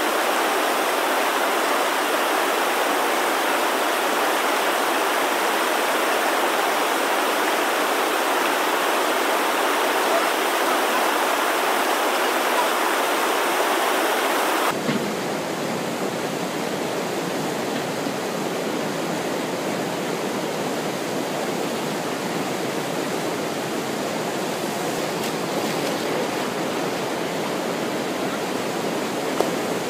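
River whitewater rushing steadily through a standing wave. About halfway through it changes abruptly to a slightly quieter, deeper rush.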